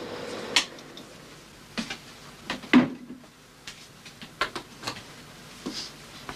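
Irregular clicks and knocks as equipment is handled in a darkroom, about ten in all, the loudest a knock near the middle. A steady hum fades out within the first second.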